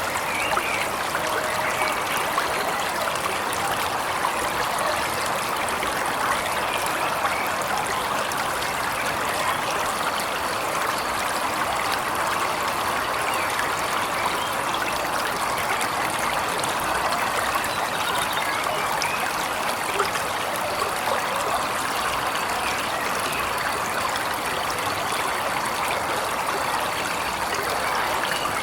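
Waterfall water rushing and splashing steadily, with a few faint bird chirps now and then.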